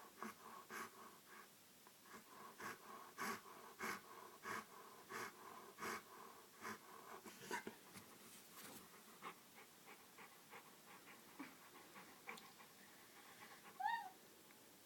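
A dog snoring in its sleep, quick noisy breaths about one and a half per second, strongest in the first half and fainter after. Near the end comes one short high whine that falls in pitch.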